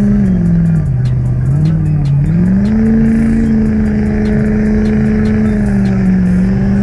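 Truck engine held at high revs during a burnout. The revs dip about a second in and climb back up, then hold steady, over the hiss of the spinning tyres.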